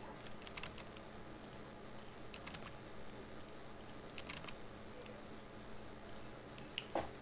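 Faint, scattered clicks of computer keyboard keys and a mouse, irregularly spaced, during 3D-modelling work at a computer.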